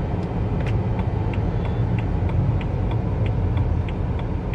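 A car's steady low rumble as it drives, with a light, even ticking about three times a second.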